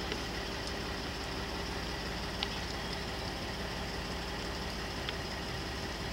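Vehicle engine idling steadily: a low, even rumble with a faint steady hum over it, and a few faint sharp clicks.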